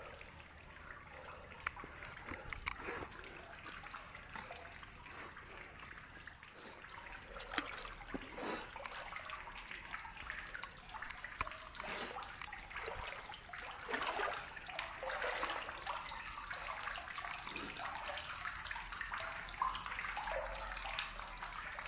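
Water dripping and trickling from a rock ceiling into the pool of a rock-cut water cave: a patter of irregular drops that grows a little louder in the second half.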